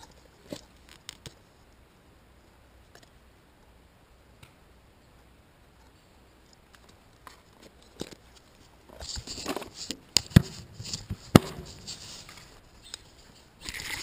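Close handling of a plastic worm tub and baiting a hook with a nightcrawler: a few faint clicks at first, then rustling with two sharp clicks about ten and eleven seconds in, and a short hiss at the very end.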